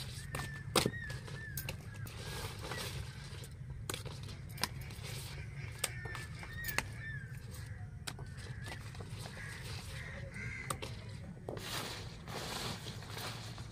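Taro stalks being cut and snapped by hand with a small blade: a string of sharp clicks and snaps, with rustling of the large leaves near the end. A bird gives short wavering calls in the background, in bouts about a second long, over a steady low hum.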